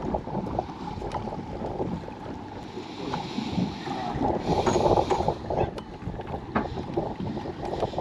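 Wind buffeting a small action-camera microphone on an open boat at sea, a dense low rumble with small scattered clicks and knocks, swelling into a louder rush about halfway through.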